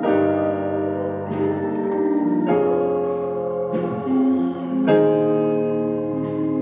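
Portable electronic keyboard played with a piano sound: full two-handed chords held and changed about every second and a quarter, in an even, slow pulse.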